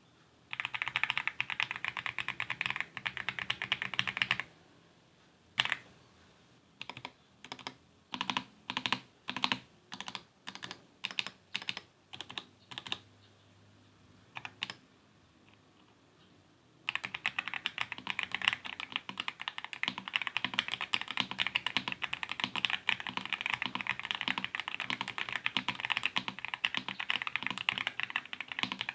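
Mechanical keyboard with stock Akko Jelly Black linear switches in a cheap plastic case, being typed on. A burst of fast typing comes first, then a run of single keystrokes about every half second, then after a pause fast continuous typing to the end.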